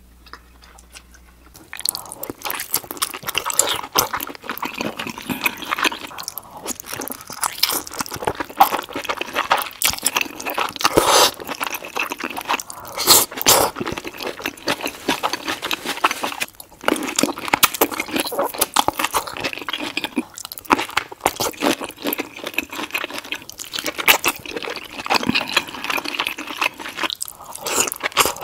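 Close-miked mouth sounds of eating a seafood boil in thick sauce: crunchy bites and wet, sticky chewing in a dense stream of clicks and crackles, starting about two seconds in after a quieter moment.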